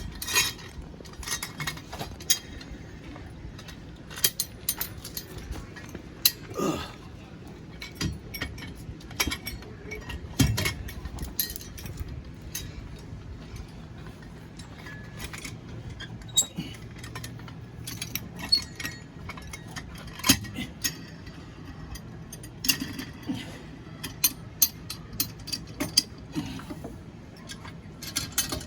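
Irregular metallic clinks, knocks and rattles from a screw-adjusted slide-out support stand being turned up against the camper's slide-out frame to take up tension, with a faint steady low hum underneath.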